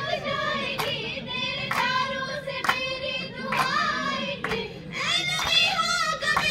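Girls singing a qawwali, one voice over a microphone, with the group's hand claps keeping the beat about once a second.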